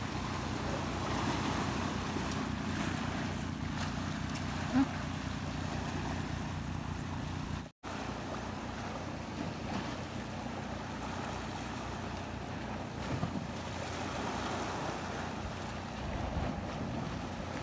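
Sea waves washing on a rocky shore, with wind buffeting the microphone and a steady low drone underneath in the first half. There is a brief sharp sound about five seconds in, and the sound drops out for a moment near the middle.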